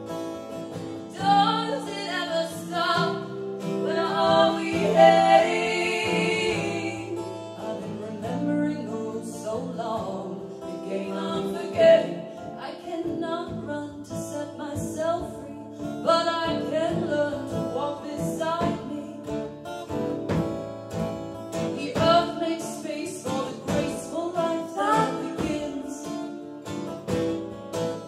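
A song performed live: singing over strummed acoustic guitar.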